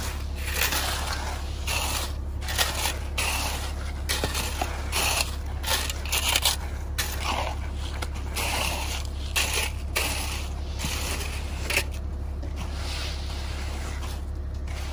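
Steel shovels scraping and pushing through wet concrete in short, irregular strokes, with a steady low hum underneath. The strokes thin out over the last few seconds.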